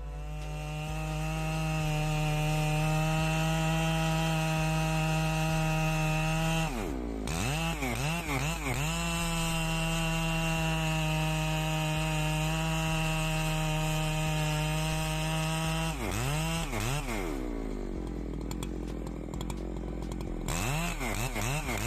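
Husqvarna 3120XP chainsaw's 119 cc engine running at high revs in two long steady spells, with the throttle blipped up and down several times between them and again near the end, and the revs dropping for a while before that.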